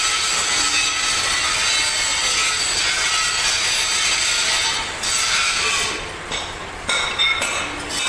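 Steady scraping and rubbing of hand work on the metal parts of a small diesel engine, letting up briefly about five and six seconds in, with a few clinks of a metal tool near the end.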